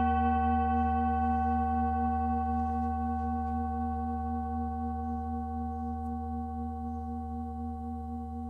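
Intro music: a singing bowl's sustained ringing tone with several overtones over a low steady hum, slowly fading.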